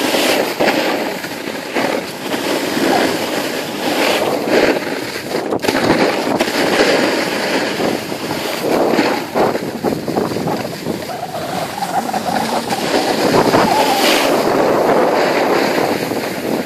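Skiing or snowboarding downhill on packed snow: a continuous rough scraping hiss of edges sliding over the snow, rising and falling in level, with wind on the microphone.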